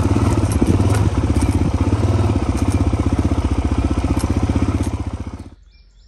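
Small motorcycle-type engine running steadily with a quick, even pulse while riding a dirt trail. It cuts off suddenly about five and a half seconds in.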